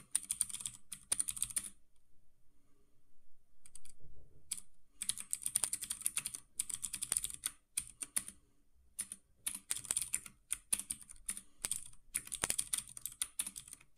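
Typing on a computer keyboard: quick runs of key clicks in bursts, with a pause of nearly two seconds shortly after the start and brief breaks between later runs.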